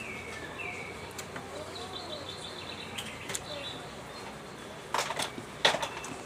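Close mukbang eating sounds, chewing and mouth smacks, with a few sharp smacks about five seconds in. Behind them, small birds chirp: short falling chirps at the start, then a quick high twitter in the middle.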